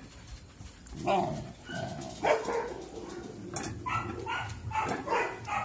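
Caucasian Shepherd dogs giving a run of short yips and barks, starting about a second in and coming closer together toward the end.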